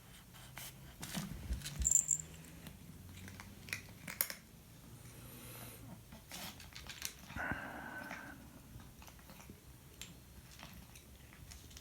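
Close-up sounds of a house cat moving about: scattered small clicks and rustles, a soft knock about two seconds in, and a breathy, noisy sound lasting about a second just past the seven-second mark.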